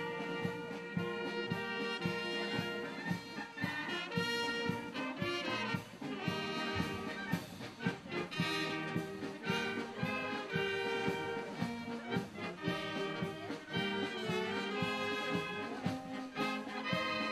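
Marching brass band playing a tune, trumpets and trombones carrying the melody over a steady beat.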